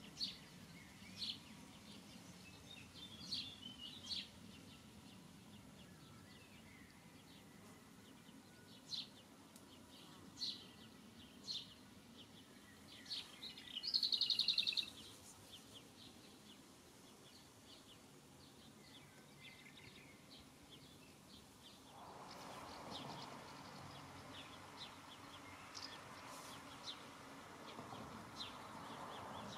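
Small birds chirping outdoors in scattered short, high calls, with one louder rapid trill about halfway through, over faint steady background noise that grows a little louder about two-thirds of the way in.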